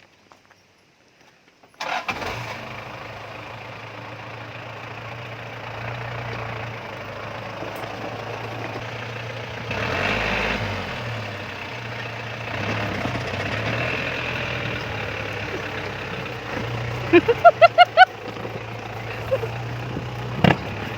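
Toyota 14B four-cylinder diesel truck engine in a Daihatsu Taft 4x4 starting up about two seconds in, then running steadily and revving up briefly around the middle. Near the end comes a quick run of five or six short high-pitched beeps.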